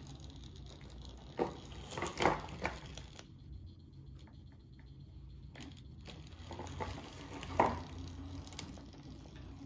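Traxxas TRX-4 crawler creeping at low throttle on its new brushed ESC: a faint steady motor hum with a few sharp clicks and clatters, a cluster about one and a half to two and a half seconds in and one louder knock near the end.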